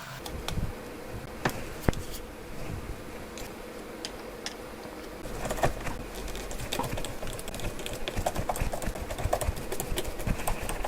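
Light clicking and tapping of small tools and smartphone parts being handled on a workbench, with a couple of sharper clicks about two seconds in and a quicker run of ticks through the second half, over a faint steady hum.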